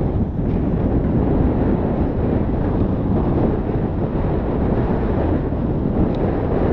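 Wind buffeting the microphone of a camera riding on a mountain bike, mixed with the steady rumble of tyres rolling fast over a dirt trail. A faint click comes about six seconds in.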